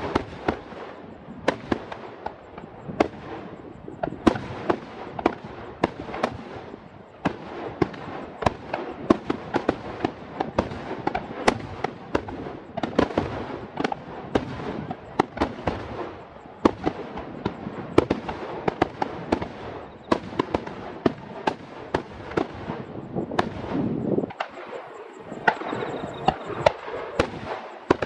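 Aerial fireworks bursting in a dense barrage: sharp bangs several times a second over a continuous crackling rumble, a finale volley.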